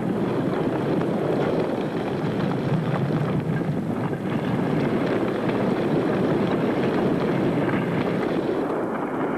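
A volcanic eruption: a steady, rushing roar with a crackling texture.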